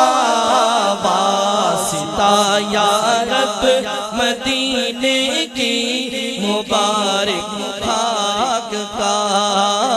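A man singing an Urdu naat (Islamic devotional song) into a microphone over a sound system, in long, winding melodic lines. A steady low drone holds underneath.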